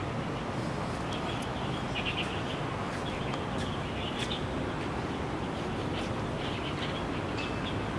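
Small birds chirping in short, scattered high calls over a steady background hum.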